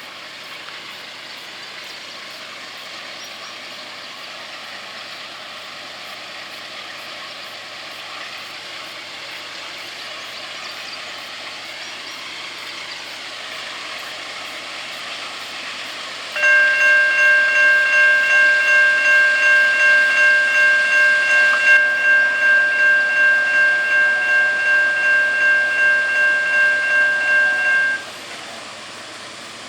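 Norfolk Southern manifest freight train approaching, its rumble slowly growing louder. About halfway through, the locomotive's air horn sounds one long chord of about eleven seconds, wavering slightly in loudness, then cuts off while the train runs on.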